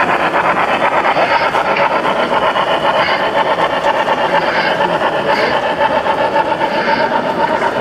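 Model steam locomotive running on a layout: a steady, rapid rhythmic mechanical sound with a constant hum, and faint short high chirps about once a second.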